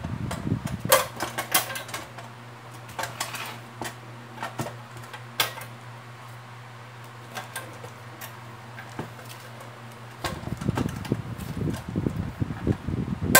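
Scattered light clicks and taps of a tie wire and fingers on a plastic bathroom scale's casing, over a steady low hum. From about ten seconds in, a louder rumbling handling noise joins with more clicks.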